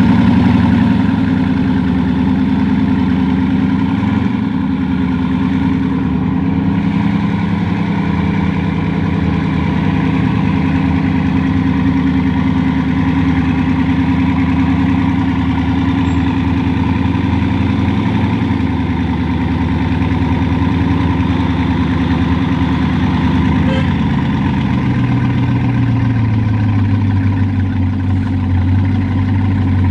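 Bugatti Chiron's 8.0-litre quad-turbo W16 idling steadily, its note shifting lower near the end.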